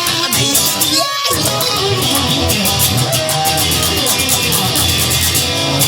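Instrumental passage of a rock song: electric guitar over bass and drums with a steady beat.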